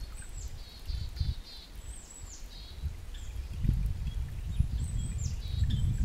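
A small songbird singing the same short phrase three times, each a high downslurred whistle followed by a quick run of lower notes. A low rumble underneath grows louder in the second half.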